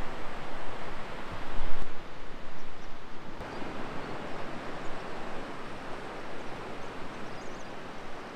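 Steady outdoor wind-and-surf noise: wind rumbling on the microphone over the even wash of distant surf at low tide, with a brief gust about two seconds in.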